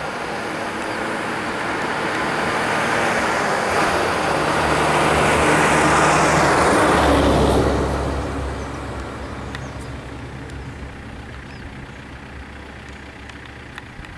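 Lanka Ashok Leyland bus's diesel engine driving past at close range, growing louder to a peak about halfway through and then fading as it moves away.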